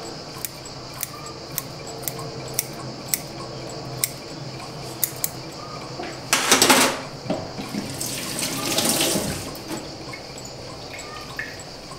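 Kitchen tap running into a steel sink in two short spells, a loud one about six seconds in and a softer, longer one just after, as something is rinsed under it. Beneath it, a mechanical alarm clock ticking steadily about twice a second.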